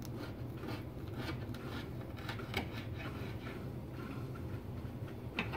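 Butter knife sawing slowly through a lemon on a wooden cutting board: faint, repeated scraping strokes, with a sharper knock near the end, over a steady low hum.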